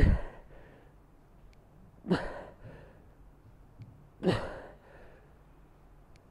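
A man exhaling hard three times, about two seconds apart, each a short breathy puff, the first the loudest. These are effort breaths as he strains through the last reps of a hard set of dumbbell squats.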